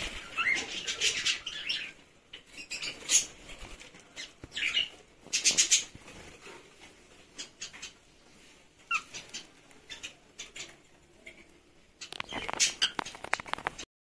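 Aviary budgerigars and cockatiels calling in irregular bursts of chirps and squawks, with wing flapping as a cockatiel flies past near the start. The sound cuts off abruptly near the end.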